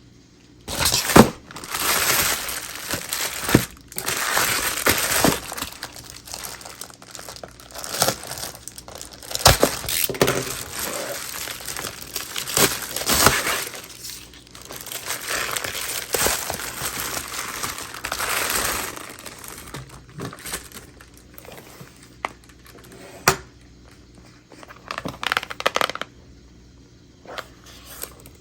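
Packaging being opened by hand, crinkling and tearing, with sharp clicks and taps. It is busy for about twenty seconds, then thins to a few scattered taps.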